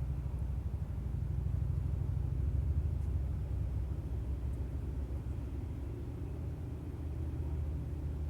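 A low, steady rumble with no clear distinct events.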